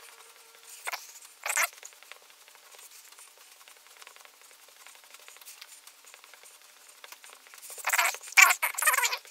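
A hand brushing eraser crumbs off a sheet of drawing paper: two short sweeps about a second in, then a run of quicker, louder strokes near the end.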